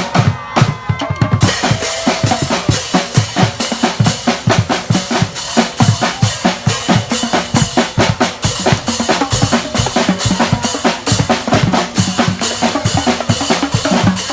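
A street band's drums playing a steady, busy beat on bass drum and snare.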